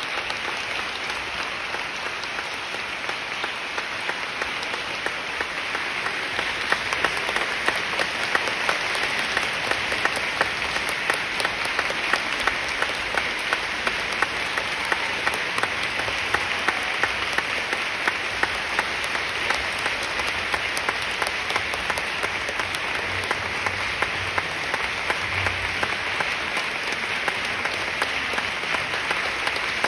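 Theatre audience applauding steadily, with sharp individual claps close by standing out.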